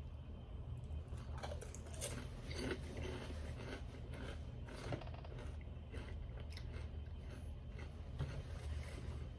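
Close-miked eating of a fried bologna sandwich on toasted bread: biting and chewing with crunchy bites, thickest about two to five seconds in, over a steady low hum.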